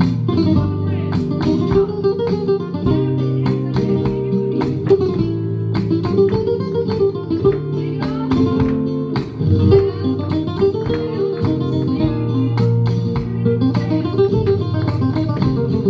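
Flamenco guitar music for a garrotín, played as a recording, with plucked runs and sharp strummed chords in a steady dance rhythm.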